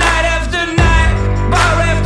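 Music: a song with a singing voice over a band's steady bass line.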